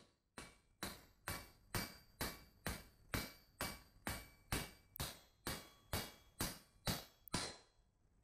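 Blacksmith's hammer striking steel on an anvil in a steady rhythm, about three blows a second, each ringing briefly. The blows pause for a moment near the end.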